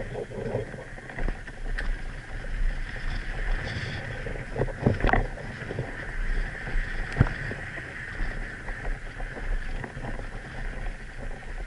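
Tandem downhill mountain bike rolling fast over a dirt trail, heard as a steady rush of wind on the camera microphone with tyre noise and rattle. A few sharp knocks from bumps come about five seconds in and again about seven seconds in.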